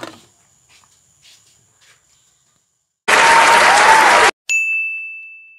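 A stock sound effect of an audience applauding, loud and cut off abruptly after about a second, followed by a single bell ding that rings out and fades away. Before it there are only faint clicks.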